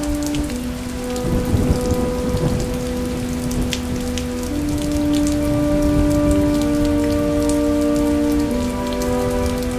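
Rain sound effect falling steadily, laid over slow held music chords that change about every four seconds.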